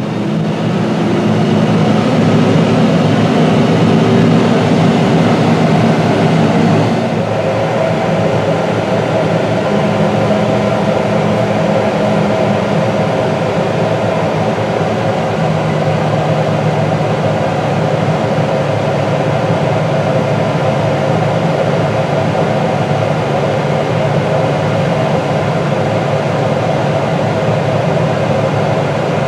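Big tractor diesel engines running steadily: for the first several seconds the 340 hp Deutz-Fahr 9340TTV pushing silage, then, after a change about 7 seconds in, a McCormick X8.760 running while its Penta trailer tips and dumps chopped corn silage.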